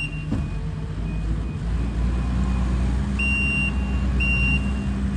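Heavy construction vehicle's engine running steadily, its backup alarm beeping twice near the end as it reverses while dirt is delivered.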